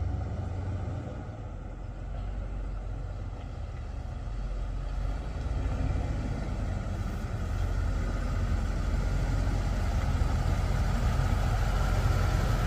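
Rolls-Royce Silver Spirit's 6.75-litre V8 running at low speed as the car rolls slowly up toward the listener. The low engine rumble grows steadily louder as it approaches.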